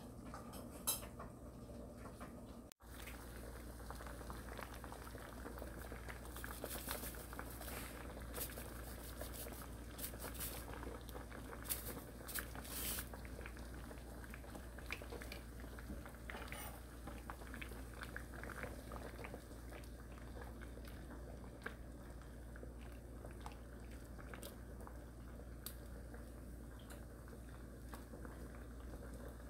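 A pot of Korean seaweed soup (miyeokguk) boiling: steady bubbling with scattered pops and clicks. Before a sudden cut about three seconds in, a kitten is eating from a bowl.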